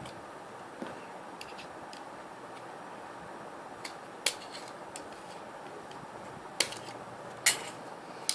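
Sharp, short plastic clicks and snaps from model-kit parts being handled and cut free by hand, about six of them at uneven gaps of a second or more, over a steady background hiss.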